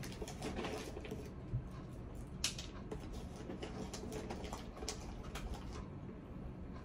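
Light scattered clicks and rustling as a bag of cat treats is handled, with one sharper click about two and a half seconds in.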